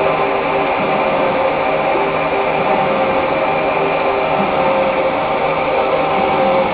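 Gear shaping machine cutting a large gear blank with a pinion-type cutter under flooding cutting oil: steady machine noise with several held whining tones.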